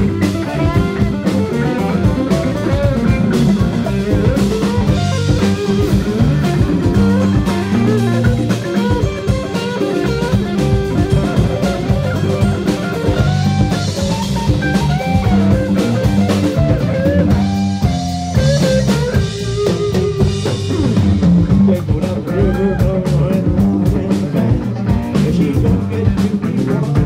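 Live rock band playing an instrumental passage: a lead guitar line over bass and drum kit.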